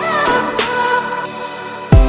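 Lofi hip-hop track: sustained mellow instrument tones over a slow beat, with a snare hit about half a second in and a deep kick drum near the end.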